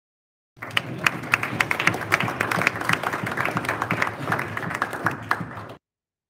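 A small roomful of people applauding, the clapping starting about half a second in and cutting off abruptly near the end.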